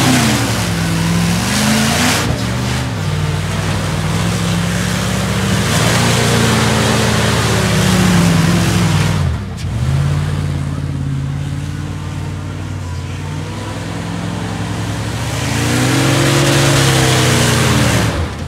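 Dodge Ram 2500's Magnum gasoline engine revving up and down as the pickup spins its rear tyres in mud doing donuts; the engine note rises and falls several times, dipping briefly about halfway through, over a steady hiss of spinning tyres and flung mud.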